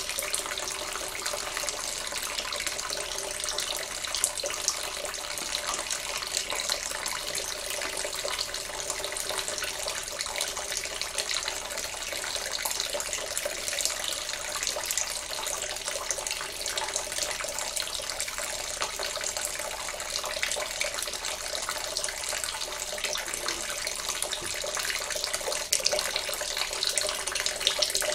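A thin stream of liquid pouring steadily into a LEGO brick maze and trickling through its channels, a little livelier near the end.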